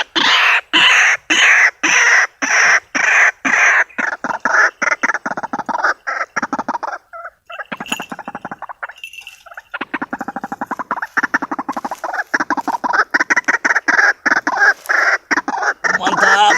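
White-breasted waterhen calling: loud, harsh repeated croaks, about two a second at first, a short lull just after the middle, then a faster stuttering run.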